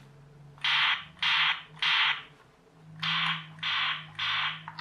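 Plastic toy gun's electronic shooting sound effect playing through its small replacement speaker: two volleys of three short, hissy bangs.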